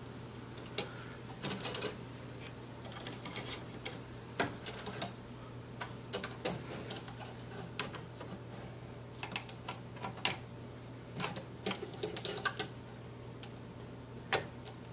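Irregular clicks and light knocks as a PS4 Slim motherboard is set into and adjusted in the board holder of a BGA rework station, over a steady low hum.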